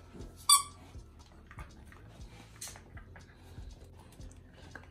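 A squeaky dog toy squeaks once, sharp and high, about half a second in. Soft scattered taps and chewing noises follow as a small dog mouths and paws a toy ball.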